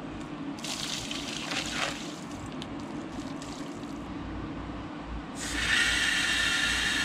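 Water being flushed through a 1934 Ford's removed radiator with a garden hose: a short splash as water pours out of it about half a second in, then about five seconds in the hose water starts running into the radiator with a steady rushing hiss.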